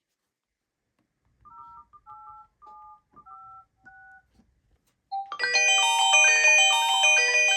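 Phone ringtones: a faint short melody of simple electronic beep notes, then about five seconds in a loud ringtone of many quick, overlapping ringing notes begins.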